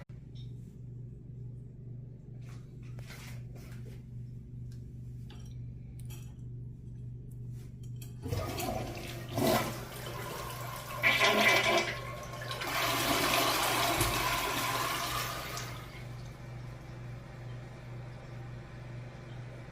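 A toilet flushing. After a few faint clicks, the flush starts about eight seconds in with loud splashing bursts, then a steady rush of water that fades away a few seconds later.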